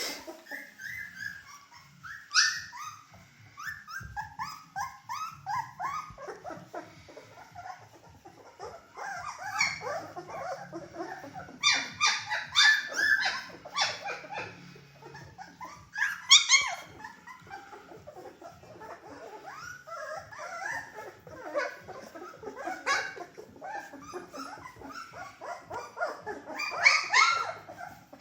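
A litter of three-week-old Bernedoodle puppies whimpering, squeaking and yipping, many short high calls overlapping. Louder yelps stand out several times.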